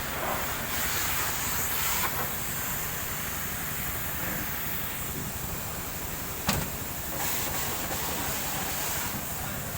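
Steady hissing of a high-pressure spray on a Scania K360ib bus engine during an engine wash, with one sharp click about six and a half seconds in.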